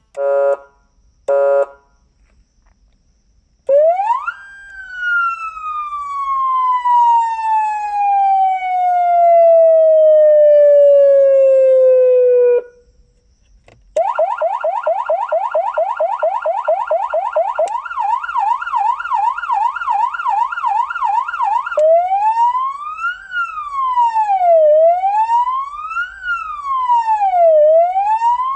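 CJB200E electronic police siren unit running through its tones. First come two short horn-like blasts, then a tone that shoots up and slowly falls for about eight seconds. After a brief pause comes a fast yelp of about five sweeps a second that shifts to a different quick pattern, and finally a slow wail rising and falling about every two seconds.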